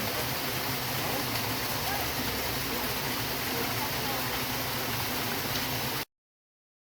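Steady rush of a rainforest stream and waterfall, which cuts off suddenly about six seconds in.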